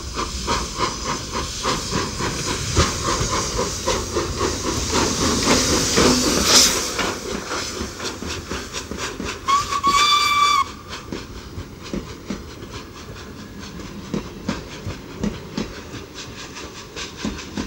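Steam locomotive chuffing in a steady rhythm with a hiss of steam. About ten seconds in, a short steam whistle blast sounds, lasting about a second. Right after it the sound drops abruptly and the chuffing carries on more quietly.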